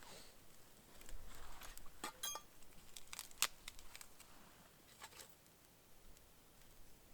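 Scattered small crackles, rustles and sharp snaps, the loudest a single sharp click about three and a half seconds in.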